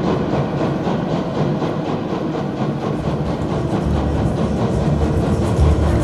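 Loud, steady rushing wind of a stage snowstorm effect, with music underneath and a deep bass note entering about halfway through.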